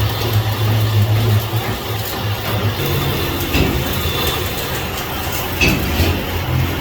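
Workshop machinery running with a steady low hum that shifts a little higher partway through, with a few clicks and short squeaks over it.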